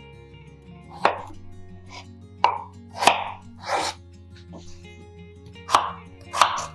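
Kitchen knife cutting peeled potatoes on a bamboo cutting board: several separate knocks as the blade goes through and hits the board, over soft background music.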